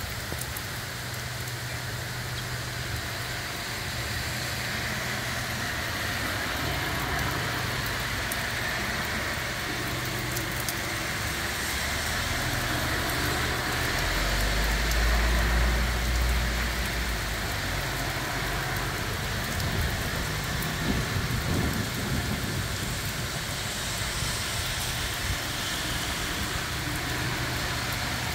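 Heavy rain pouring down steadily, a dense hiss on trees and hard surfaces, with a low rumble swelling for a few seconds about halfway through.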